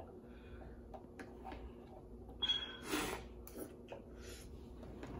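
Faint mouth sounds of someone sipping spicy noodle broth from a plastic bowl, with a brief noisy slurp about halfway through.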